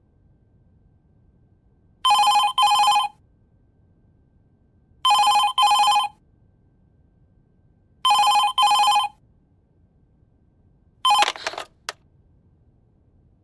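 Landline desk telephone ringing with an electronic double ring (ring-ring), repeated three times about three seconds apart. The fourth ring is cut off short near the end by a clatter and a click as the handset is lifted from its cradle.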